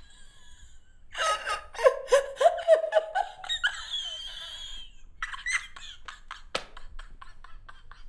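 A woman laughing hard. A run of quick loud "ha" bursts starts about a second in, then comes a high squealing stretch, then softer breathy laughs that trail off. A single sharp click falls among the trailing laughs.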